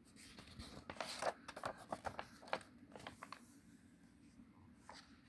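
Faint paper rustling and a few soft flicks as a storybook page is turned, mostly in the first three seconds.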